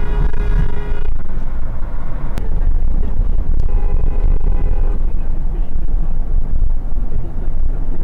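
Two car horn honks, each a single steady blast. The first lasts about a second at the start, and the second, at a different pitch, lasts about a second and a half near the middle. Loud, steady road and engine noise from a car at highway speed runs underneath.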